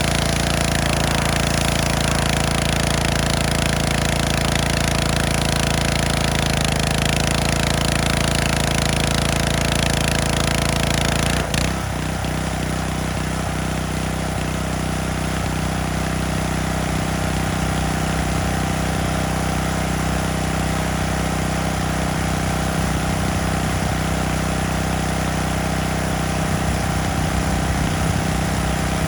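Gas-engine pressure washer running steadily under a loud spray hiss; about eleven seconds in the hiss cuts off suddenly and the engine note changes as the spraying stops.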